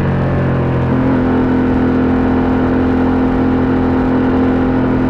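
BMW F 900 R's parallel-twin engine running through an SC Project SC1-R carbon exhaust, holding a steady, even note.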